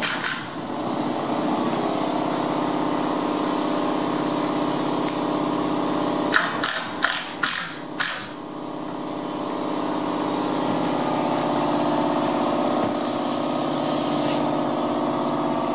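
Power drill running steadily, as when driving screws through a door jamb into its shims. About six seconds in it stops for about five quick knocks, then winds back up and keeps running.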